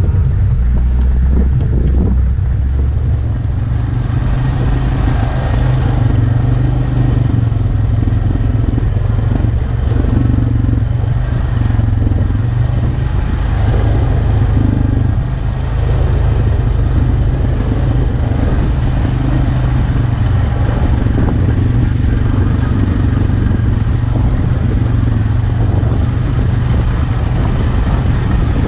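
ATV engine running steadily at trail speed, heard from the rider's seat, with tyre and rattle noise from the rocky dirt track.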